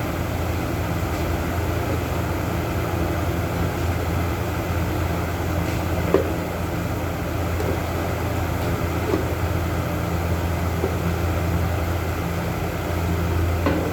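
A steady low mechanical hum with a rough, even noise over it and a few faint clicks.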